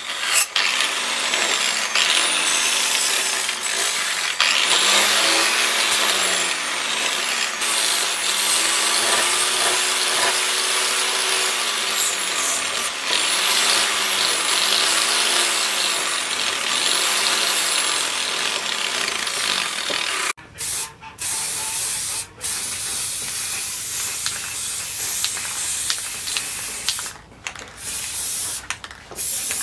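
Angle grinder with a flap disc running against the steel of a leaf-spring machete blade, its pitch dipping and rising in repeated swells every second or two. About twenty seconds in, the grinding stops and a hiss broken by short gaps follows, ending with an aerosol spray can sprayed onto the blade.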